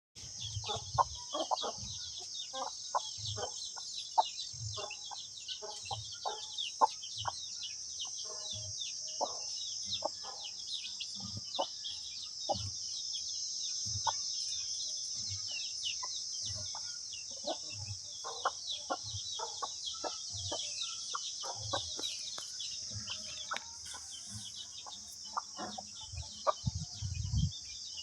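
A flock of breeding chickens clucking and chirping over and over, over a steady high-pitched hiss.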